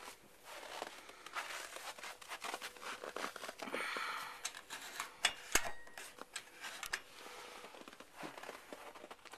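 Irregular rustling and crackling, with scattered sharp clicks and taps and one louder click about halfway through.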